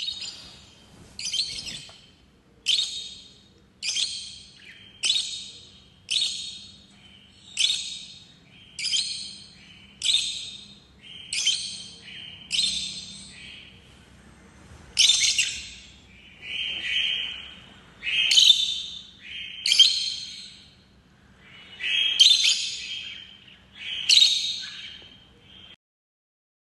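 Lovebirds chirping: high-pitched call bursts of about half a second each, repeated roughly once a second, stopping near the end.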